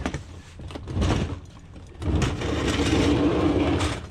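Scrap being slid and shoved into a vehicle's cargo space: a short scrape about a second in, then a longer rough scraping slide of about two seconds that stops abruptly.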